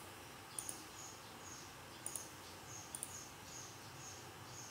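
Computer mouse clicking three times, each a quick press-and-release double tick, as spline points are placed. A faint short high chirp repeats about twice a second behind them.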